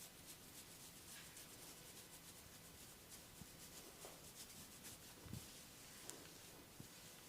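Faint rubbing and scratching of a barber's hands on a client's hair and skin during a head massage: soft repeated strokes, with a soft knock about five seconds in.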